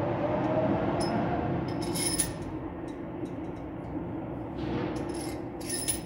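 Metal tools and engine parts clinking as a mechanic works on a JCB engine during a top overhaul: a few short, ringing metallic clinks, some in quick clusters, over a steady low hum.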